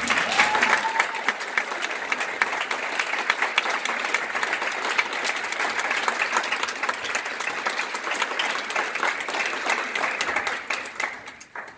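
Theatre audience applauding, starting suddenly and fading out near the end, with one short rising call in the first second.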